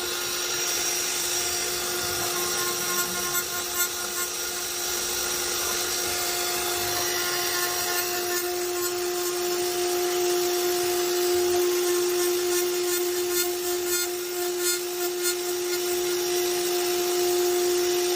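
CNC router spindle running steadily with a high whine as it carves wood, over the constant noise of the cut. The whine grows stronger about six seconds in.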